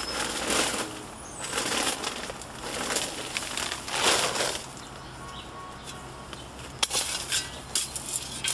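Shovel digging into soil and debris: four scraping, crunching strokes about a second apart, then a run of sharp knocks and clicks near the end.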